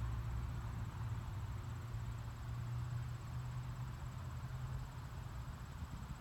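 Wind buffeting the microphone: a low, unsteady rumble that swells and eases over a softer hiss of breeze.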